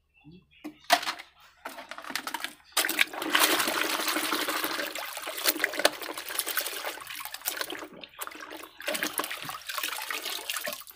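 Soapy water sloshing and splashing in a metal basin as a plastic toy truck is swished back and forth through it to wash it. A short splash comes about a second in, then steady sloshing from about three seconds in, with a brief break near nine seconds.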